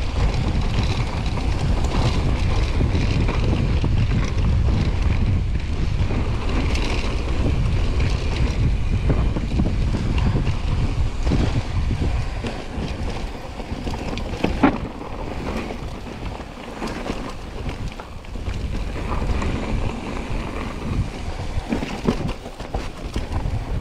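Wind buffeting the microphone of a camera riding a mountain bike downhill, with the rumble of tyres and the bike's clatter over rough ground. About halfway through the rumble eases, leaving scattered sharper knocks, one much louder than the rest.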